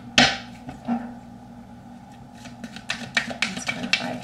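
Tarot cards being handled on a table: one sharp card swish just after the start, then scattered light clicks and taps of cards being laid down near the end.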